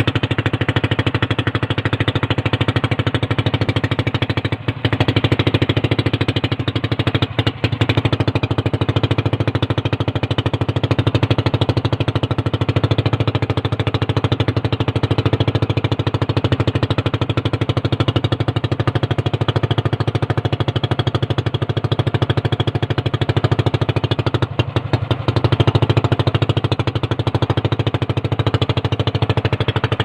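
Motorized outrigger boat's engine running steadily at cruising speed, a loud, fast, even putter.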